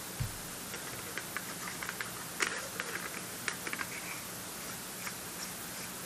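Small irregular clicks and taps of camera gear being handled, with a single low knock a fraction of a second in and a steady faint hum underneath. The gear is most likely an M42 2x teleconverter being fitted or turned in the hands.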